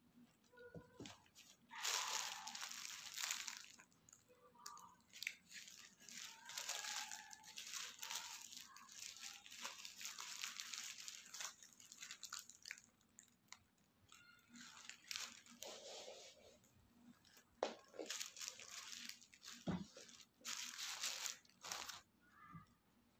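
Paper burger wrapper crinkling and tearing in irregular bursts as a burger is unwrapped, along with biting and chewing of the burger.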